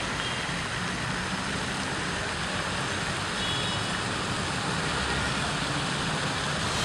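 Steady, even noise of road traffic in an open street, with no speech or music over it.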